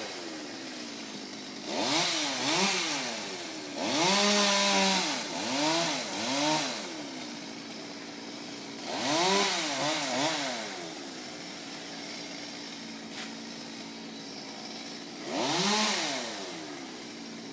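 Two-stroke chainsaw idling, revved up hard in four bursts with its pitch rising and falling, dropping back to idle between them.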